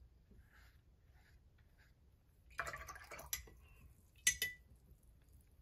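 Quiet watercolour brushwork: faint dabs of the brush early on, then about two and a half seconds in a brief swish and a click, and a little before the fourth second a single light clink that rings briefly, like the brush knocking a hard container.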